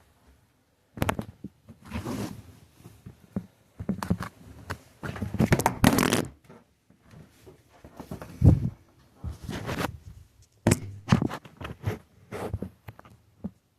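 Towel rustling and rubbing in irregular bursts as a wet cat is dried off, with a dull bump a little past the middle.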